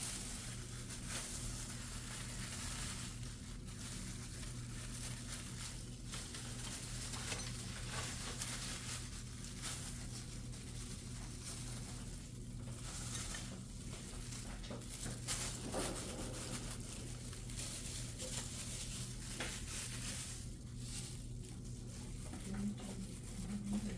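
Food sizzling in a hot frying pan, a steady hiss with scattered small taps and scrapes of a utensil. A steady low hum runs underneath.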